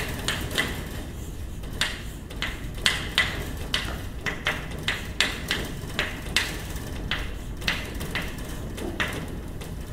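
Chalk writing on a blackboard: an irregular string of sharp taps and short scratches, about two a second, as each stroke and symbol is put down.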